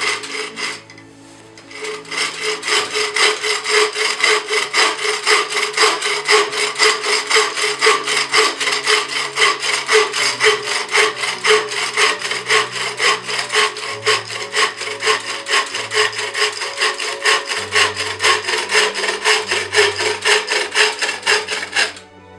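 Wooden-framed bow saw cutting through a dead ash branch with quick, even back-and-forth strokes. The sawing starts about two seconds in and stops near the end as the cut goes through. Faint background music plays underneath.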